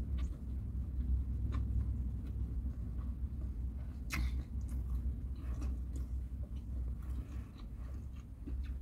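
A person chewing a mouthful of chicken wing meat, with scattered small mouth clicks and one sharper click about four seconds in, over a low steady rumble.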